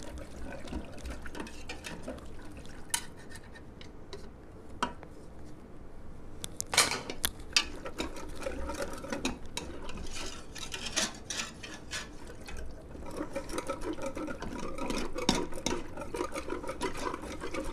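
Stirring a thin flour mixture in a metal pressure-cooker pot, first with a wooden spoon, then with a wire whisk that clicks and scrapes against the pot, working out lumps of flour. The clicking becomes sharper about seven seconds in and turns into steady rapid whisking in the second half.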